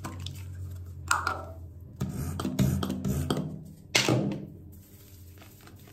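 Pump of a foaming facial cleanser bottle pressed several times, each push a short airy squirt of foam; the loudest push comes about four seconds in.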